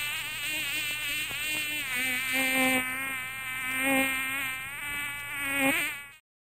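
Buzzing electronic synth tone with a wobbling pitch that steps between a few low notes, cut off suddenly near the end.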